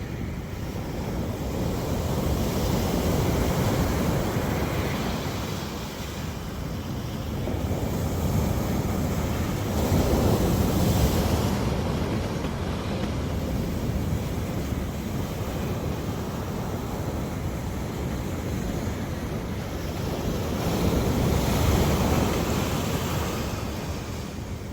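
Ocean waves breaking and washing on the shore, swelling louder every several seconds, with wind buffeting the microphone.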